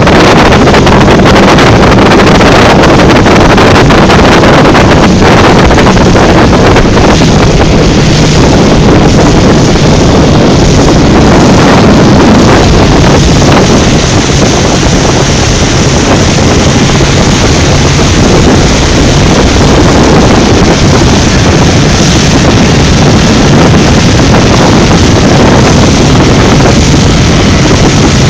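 Selva 115 Narwhal outboard motor driving a Joker Coaster 580 RIB at speed: a steady engine drone under heavy wind buffeting on the microphone and the rush of water along the hull.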